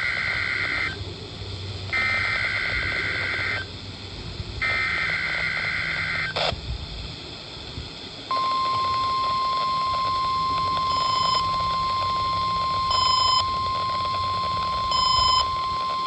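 NOAA Weather Radio test signal: three short bursts of digital SAME header data tones, each about a second and a half with a gap between, then a click and the steady 1050-hertz warning alarm tone, which runs on past the end. A brief, louder extra beep sounds over the tone three times, about two seconds apart.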